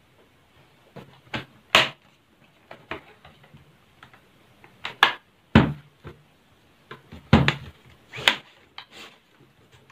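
Plastic laptop casing being handled and pressed into place: a series of sharp clicks and knocks, about seven in all, the loudest about two seconds in, just past halfway and about three-quarters through.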